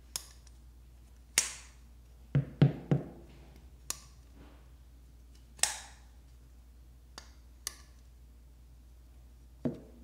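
Folding knife with a G10 handle being opened and closed by hand: a series of sharp snapping clicks as the blade swings out, locks and shuts, spaced a second or two apart. About two and a half seconds in there are three dull knocks close together, and another just before the end as a knife is set down on the surface.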